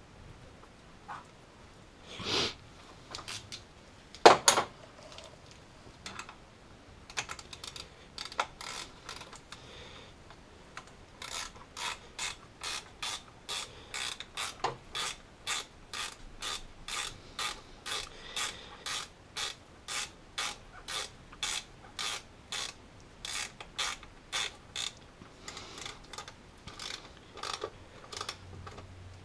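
Hand ratchet clicking in a steady rhythm, about two to three clicks a second, as a bolt is run in on the engine. There are two sharp metallic knocks about two and four seconds in, the second the loudest sound.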